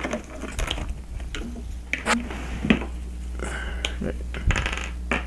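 Handling noise from a small whiteboard and a whiteboard marker being picked up and readied: scattered, irregular clicks and taps over a steady low hum.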